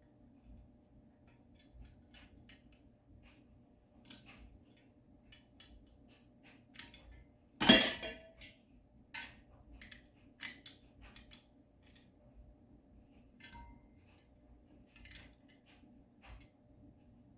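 Small metal clicks and clinks of an Allen wrench and a small wrench working a screw and screw cap on a metal garment-rack frame, with one loud metallic clank that rings briefly about eight seconds in.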